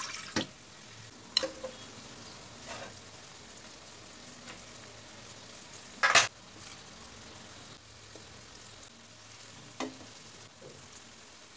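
Water being poured into a steel wok, stopping just after the start, then a few short knocks in the pan as food is put in. The loudest comes about six seconds in.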